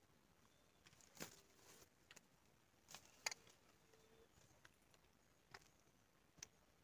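Near silence broken by faint, scattered clicks and taps from handling a small, just-caught fish and its line while it is unhooked.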